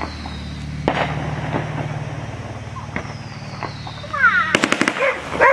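Fireworks: a few single pops, then a rapid string of sharp cracks near the end, over a steady low hum.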